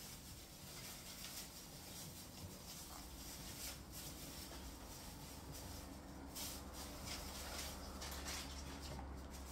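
Faint soft rustles, pads and sniffs from an English bulldog puppy moving about and sniffing on a cloth blanket.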